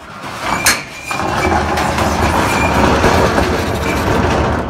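Metal latch on a corrugated steel roll-up storage-unit door clicks, then the door rattles loudly for several seconds, fading near the end.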